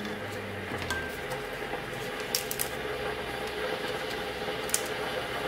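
A few sharp little clicks and snaps as the brittle stems of dried button mushrooms are broken off by hand and dropped on a wooden cutting board, over a steady hum.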